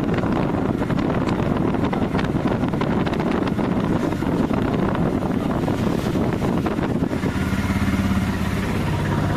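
Engine and road noise from inside a moving vehicle, with wind buffeting and crackling on the microphone. About seven seconds in, the crackle drops away and a steady low engine hum comes through.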